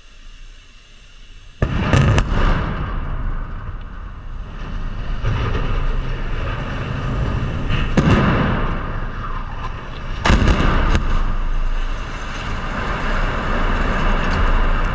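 Explosive demolition charges felling a power-plant chimney and SCR structure: a sudden loud blast with quick cracks about two seconds in, another sharp crack around eight seconds, and a cluster of cracks around ten to eleven seconds. A continuous low rumble of falling steel, concrete and debris runs between and after the blasts.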